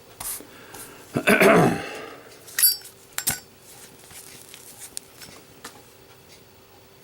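Zippo lighter's steel insert and chrome case in a drop test. A sliding rattle comes about a second in, then a ringing metal clink and a sharp click, then a few faint ticks.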